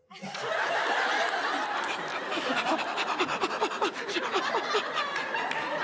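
Studio audience bursts into laughter and clapping, a dense crowd noise full of hand claps. From about halfway, a run of short, chopped laughs repeats several times a second over it.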